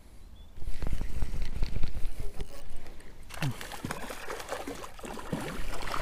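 A hooked portion-size trout thrashing and splashing at the water's surface close to the bank, in repeated irregular splashes from about three seconds in. These follow a loud, low rushing noise that starts about a second in.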